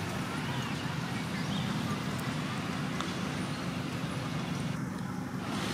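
Steady low background noise with no distinct events.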